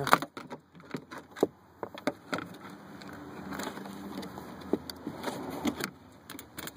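Scattered sharp clicks and knocks of plastic trim push clips and trunk trim being handled and set down during taillight removal, the loudest right at the start and about a second and a half in.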